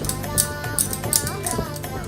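Background music: a melody with a steady percussive beat.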